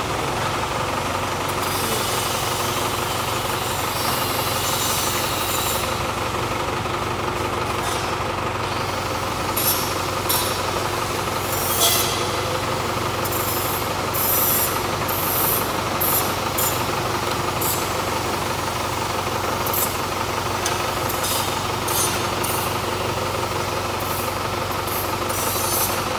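Forklift engine running steadily while it holds a heavy load at a container door. Short sharp noises break in now and then from about ten seconds in.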